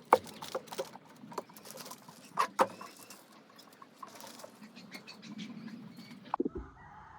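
Scissors cutting hydrographic dip film: irregular snips and crinkles, with a couple of knocks near the end.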